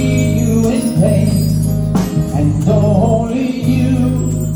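Live band playing music on stage: low bass notes held for a second or so at a time under keyboard chords, with drums and cymbals.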